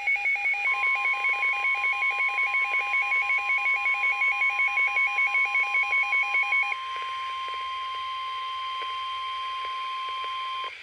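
WR-300 weather radio in alert: its own rapid electronic beeping, several beeps a second, plays over the steady NOAA 1050 Hz warning alarm tone that signals a warning is about to be broadcast. The beeping stops about seven seconds in, leaving the single steady tone, which cuts off abruptly near the end.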